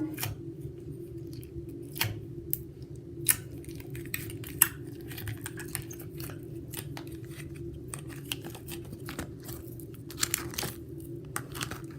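Bubbly slime being pulled out of its container and worked by hand, giving irregular sticky clicks and crackles over a steady low hum.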